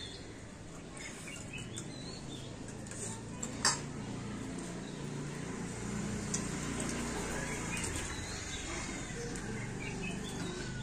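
Birds chirping faintly over a low steady background rumble, with a single sharp click about three and a half seconds in.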